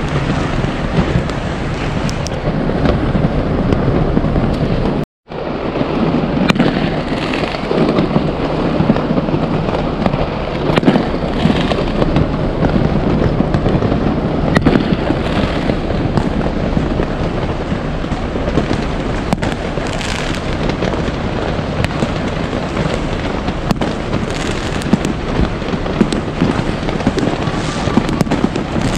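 Many fireworks going off together: a dense, continuous run of bangs and crackling over a heavy low rumble. The sound drops out completely for a moment about five seconds in, then resumes.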